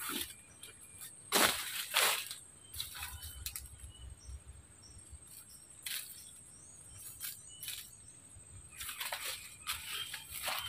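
Rustling and crunching of dry leaves and undergrowth in short bursts a few seconds apart, as someone moves and works in thick brush. Faint high chirps in the background.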